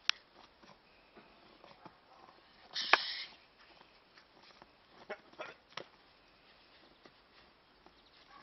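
Scattered crunching footsteps in snow from a person and a small dog moving about, with one louder crunch about three seconds in and a few sharper ones later.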